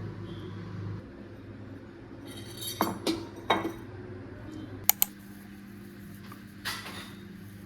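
Kitchen dishes and utensils clinking and scraping in a few short bursts: a cluster about three seconds in, two sharp clicks near five seconds, and one more near the end, over a steady low hum.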